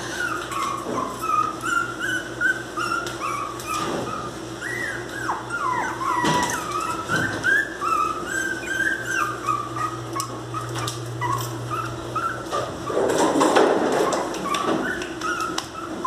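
Miniature pinscher puppy whining and crying in a near-continuous string of short, high, wavering cries. A louder, rougher burst comes about thirteen seconds in.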